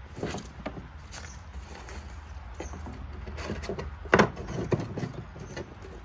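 Objects being handled and set down while sorting through a box of belongings: irregular knocks and clatter, the loudest a sharp knock about four seconds in.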